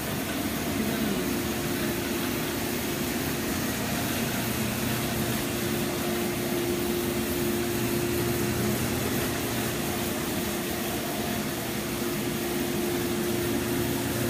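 Rotary carpet-cleaning extraction machine running on carpet: a steady motor hum with a held tone over a rushing suction noise.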